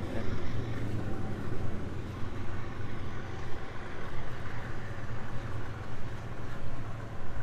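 Portable generators running steadily on the pier, a low continuous engine hum.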